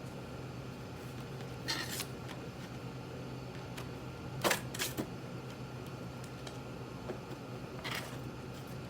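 Packaging of a new sewing machine being handled while unboxed: a few short rustles and scrapes, the sharpest about four and a half seconds in, over a steady low hum.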